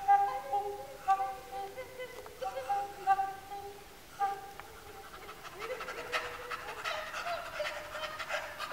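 Two male voices improvising wordless sound poetry. First comes a string of short held tones broken by pauses and mouth clicks, then, a little past halfway, a rising glide into rougher, breathier, strained vocalising.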